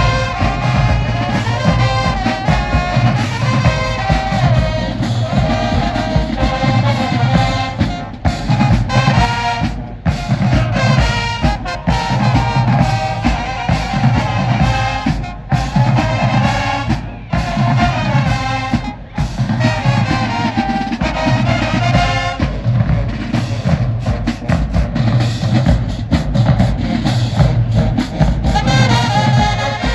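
A high school marching band playing a brass-led tune: trumpets and trombones over a steady beat.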